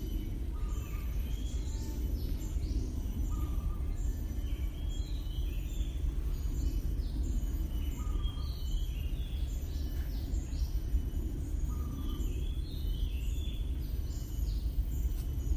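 A chorus of wild birds calling, with many short, high notes sweeping downward and brief whistled notes repeating at a lower pitch, over a steady low rumble.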